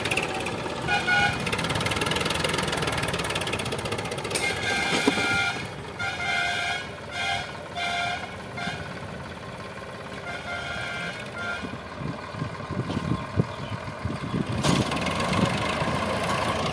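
Sonalika DI 745 III tractor's three-cylinder diesel engine running under load while it drives a rear rotary tiller through the soil. In the first half, several short steady-pitched tones sound over it.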